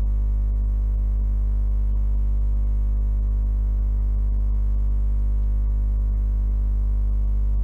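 Steady deep electrical hum with a ladder of fainter overtones, unchanging throughout; no cooking sounds stand out above it.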